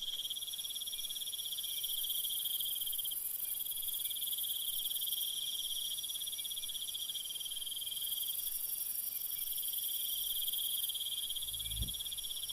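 Crickets chirping in a steady, continuous high trill, with a brief low thump near the end.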